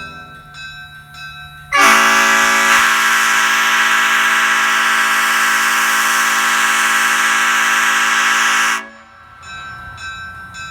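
Nathan Airchime P01235 old-cast five-chime air horn, with its long P0 bell in place of the usual 4 bell, sounding one loud, steady chord for about seven seconds; it starts about two seconds in and cuts off sharply. A second blast begins at the very end.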